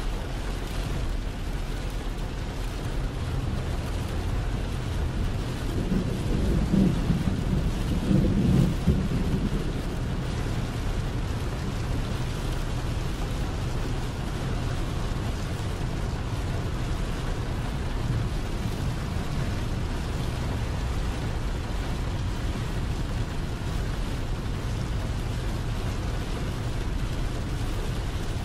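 Heavy rain on a semi truck's windshield and cab, heard from inside the cab over the steady low noise of the moving truck. A louder low rumble rises and falls about six to nine seconds in.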